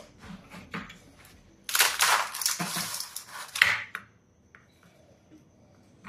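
Plastic ice cube tray being twisted and knocked, a few light clicks and then a loud stretch of crackling as the ice cubes crack loose from the tray.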